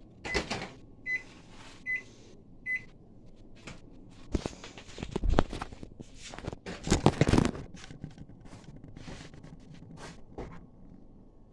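Microwave oven finishing its cycle: the hum has stopped and the timer gives a few short, high beeps about a second apart, signalling the food is done. Several knocks and clatters follow, loudest in the middle.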